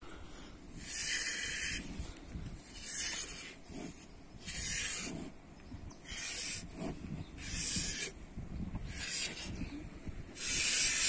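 Hand-milking a cow: squirts of milk hiss into a cut-down plastic bottle, one short hissing burst about every second and a half.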